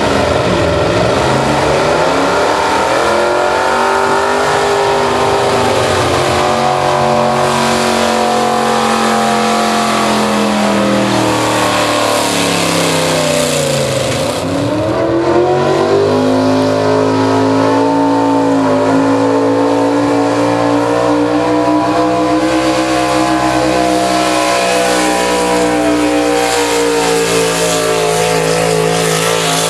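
4x4 pickup pulling-truck engines running hard at high revs, the pitch dipping sharply and climbing back up a little past halfway.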